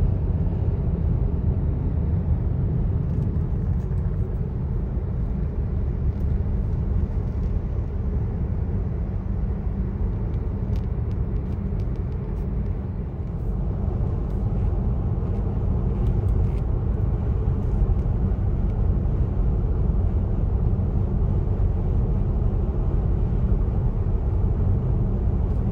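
Steady low rumble of road and engine noise from a car driving at highway speed, heard from inside the cabin.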